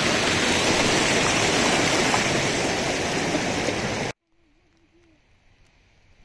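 Mountain stream rushing over rocks, a loud steady rush that cuts off suddenly about four seconds in. After it, only the faint hiss of rain.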